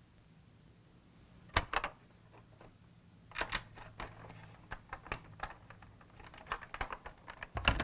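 Scattered small clicks and taps of hands and a tool working on a hard plastic toy car body: a pair of clicks about a second and a half in, then a run of irregular clicks, with a louder one near the end.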